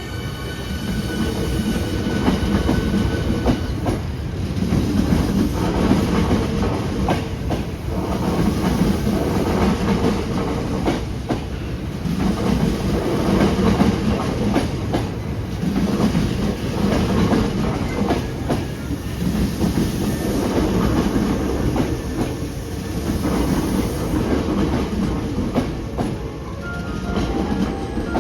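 Hankyu electric commuter train running at speed, heard from inside the car: a continuous rumble of wheels on rail that swells and fades about every two seconds.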